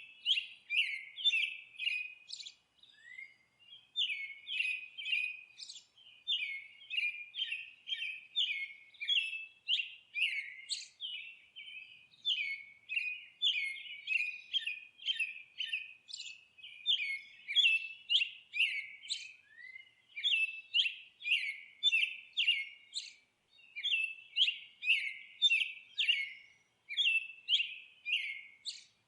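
Songbirds chirping and twittering: a quick, continuous series of short, high chirps, a few each second, broken by brief pauses.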